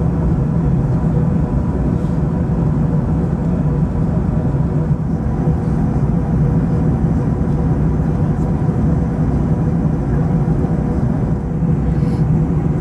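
Steady cabin noise of an Airbus A380 in cruise: a constant low rumble of airflow and engines, with a faint steady hum above it.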